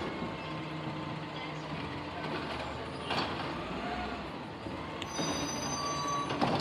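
Automated side-loader garbage truck's diesel engine running steadily while its hydraulic arm works the carts, with a sharp knock about three seconds in and another clunk near the end.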